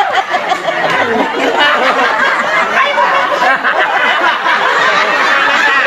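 Crowd laughing and chattering, many voices overlapping.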